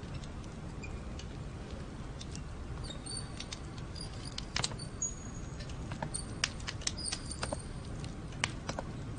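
Faint scattered clicks and ticks, with a few brief high squeaks about three, five and seven seconds in, over a low steady hum.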